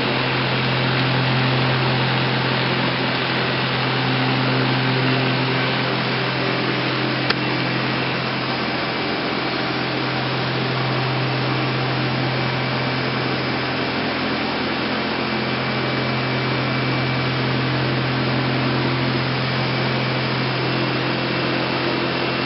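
Steady hum with a hiss over it from a powered-up Mazak VTC-200C CNC vertical machining centre standing idle, with a single click about seven seconds in.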